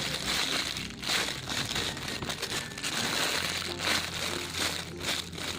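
Crinkly rustling and scraping as a squishy toy is handled and turned over in the hands.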